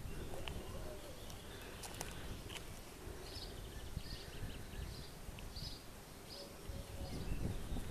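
Faint outdoor ambience with a low rumble, over which a bird chirps about seven times, roughly twice a second, through the middle.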